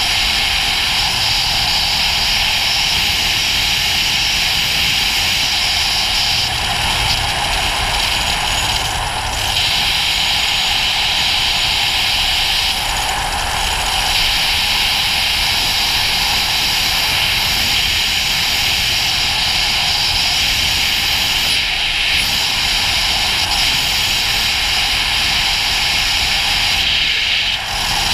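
Steady wind rush on the microphone of a Ducati GT1000 motorcycle under way, with a low engine drone underneath. The rush dips briefly now and then.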